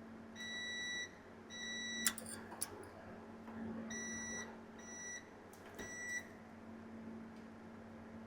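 Multimeter continuity tester beeping five times in short tones as the probes touch points on the circuit board, with a few sharp clicks of the probe tips. Each beep signals a dead short to ground.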